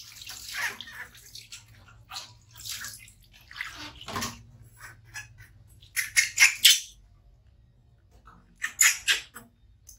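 Water splashing in several irregular bursts as it is poured from a plastic bowl over a baby monkey standing in a plastic wash basin. The loudest splashes come about six seconds in and again near the end.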